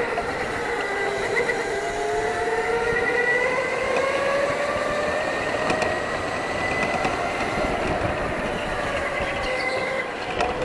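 Electric go-kart motors whining at racing speed, the pitch rising and falling as the karts speed up and slow through the corners. Several motors sound at once at slightly different pitches.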